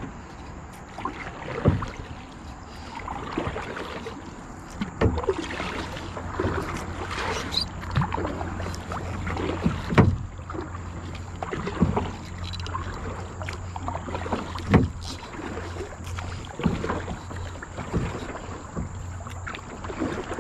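Kayak paddle strokes in river water: splashing and dripping, with a sharp splash or knock every two to three seconds.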